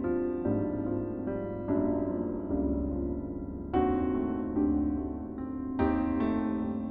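Slow, gentle piano music: held chords and single notes that ring and fade, with a fuller chord struck about four seconds in and again near the end.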